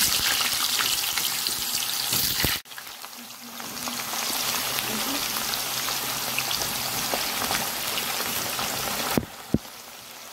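Vegetable chunks deep-frying in a pot of hot oil: a dense crackling sizzle. It cuts out suddenly about two and a half seconds in, returns quieter and builds up again, then drops near the end with a short click.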